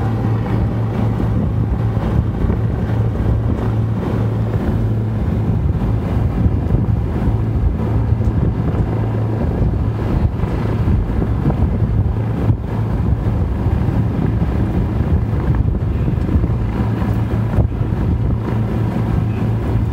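Twin Allison V-1710 V-12 engines of a Lockheed P-38 Lightning running at a steady speed, a loud unbroken low drone with propeller noise.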